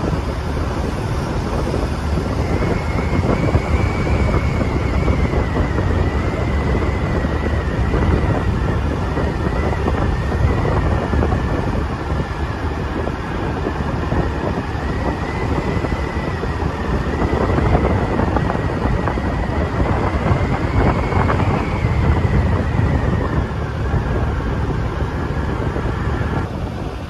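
Heavy wind buffeting on a phone's built-in microphone while riding a motorcycle, with a steady engine and road rumble underneath. A faint high whine that wavers slightly in pitch runs through most of it.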